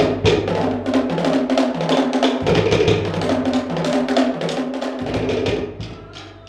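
Cook Islands drum ensemble playing a fast, dense beat, with rapid strikes on wooden slit drums over a deep bass drum and hand drums. The drumming dies down near the end.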